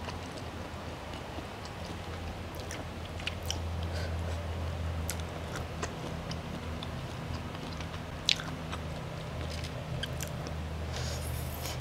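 Close-up chewing and biting of spaghetti aglio olio with prawns: wet mouth clicks and smacks, with a sharper click about eight seconds in, over a low steady hum.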